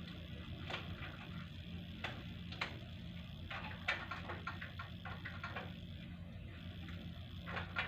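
Air-conditioning unit running with a steady low hum, with scattered light clicks and ticks over it, a quick run of them in the middle.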